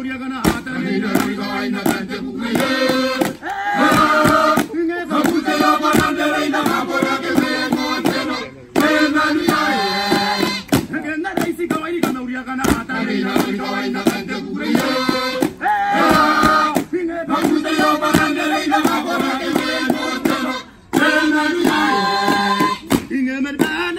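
Group of voices chanting a traditional Kiribati dance song in chorus, with sharp percussive hits. The singing breaks off briefly twice, about a third of the way in and near the end.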